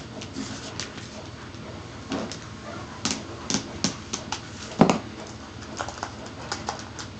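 Box cutter cutting through a thin plastic Pringles lid on a cutting mat: irregular sharp clicks and crackles as the blade cuts, with one louder snap a little before five seconds in.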